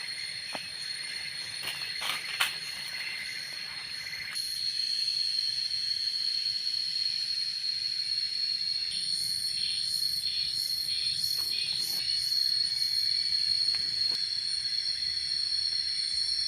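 Insects, crickets or cicadas, keep up a steady high-pitched buzz, joined about halfway through by a pulsing, rhythmic chirping. There are a few sharp clicks in the first few seconds.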